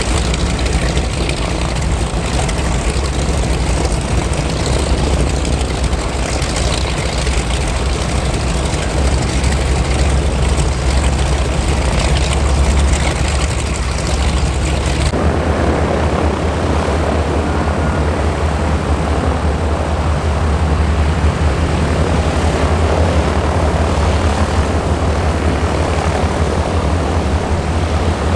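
Piston radial engines of propeller warbirds running on the ramp, a loud steady rumble. About halfway through the sound shifts abruptly and the deepest rumble drops away.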